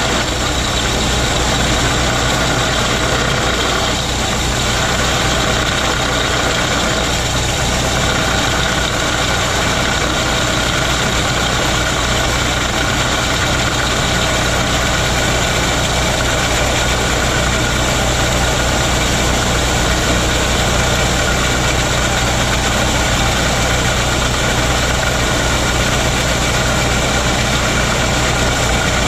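A horizontal boring machine runs steadily, with an even engine drone, while its back reamer turns through a concrete block.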